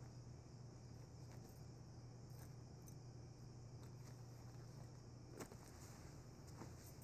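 Near silence: room tone with a steady low hum and a few faint clicks, the clearest about five and a half seconds in.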